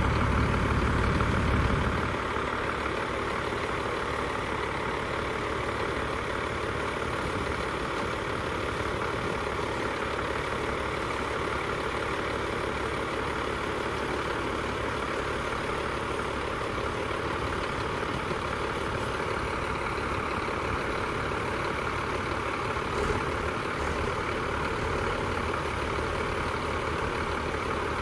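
Diesel engines of two old Caterpillar wheel loaders running steadily while they hold and lower a load. A heavier low rumble eases off about two seconds in, then the engines settle to an even run.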